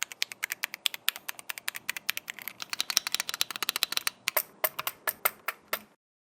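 Keychron Q1 Pro mechanical keyboard being typed on in a fast, even run of keystroke clicks. A few slower, separate keystrokes follow near the end, and the sound cuts off suddenly.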